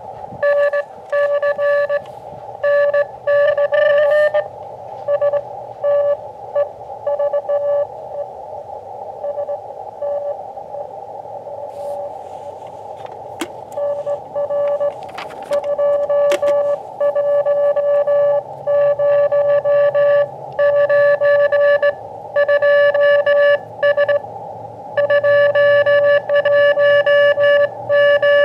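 Morse code (CW) from an Elecraft KX2 transceiver: a single tone keyed on and off in dots and dashes over steady receiver hiss, during a 40-metre contact.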